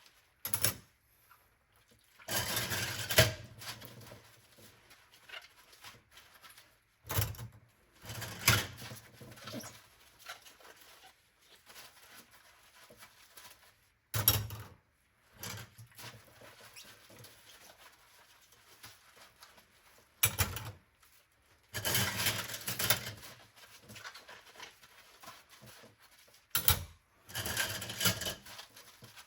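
Dishes being washed by hand at a sink: a sharp knock of a dish about every six seconds, most followed by a second or so of washing noise, with quieter handling in between.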